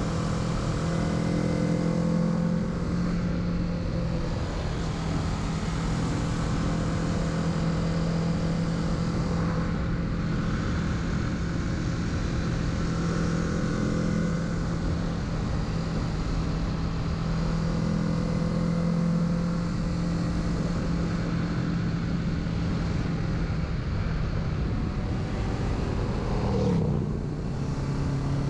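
Kawasaki Z650's parallel-twin engine running at a steady cruise on the road, with wind rush over it. Near the end the engine note falls as the revs drop, then settles lower.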